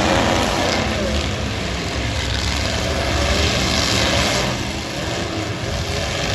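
Eight-cylinder demolition derby car engines running and revving, their pitch rising and falling.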